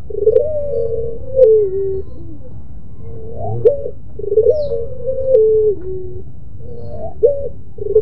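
White ringneck (Barbary) dove cooing: each call is a short rising note followed by a long drawn-out coo that steps down in pitch, repeated about every three and a half seconds.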